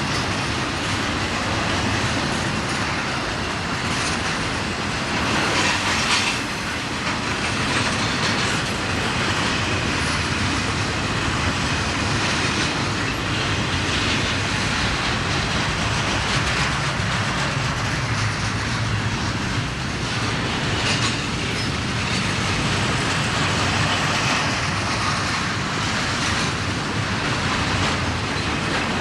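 Train cars rolling steadily past, wheels clacking over the rail joints.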